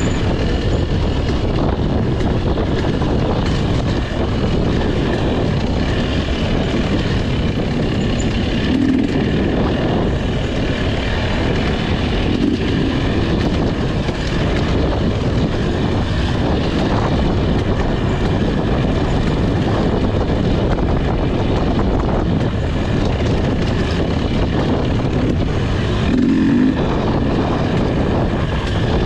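Enduro motorcycle engine running continuously under way, a steady loud engine noise with no breaks.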